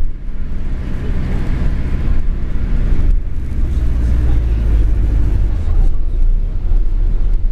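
Cabin noise of an Alexander Dennis Enviro 400H hybrid double-decker bus running: a steady low drone from the BAE hybrid drivetrain and road rumble, heard from inside the lower deck.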